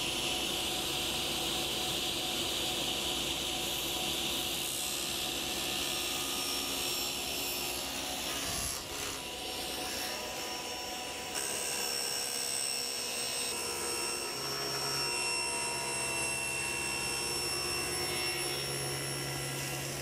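Table saw cutting a long bevelled miter through a wooden panel, a steady sawing noise with the motor's hum beneath.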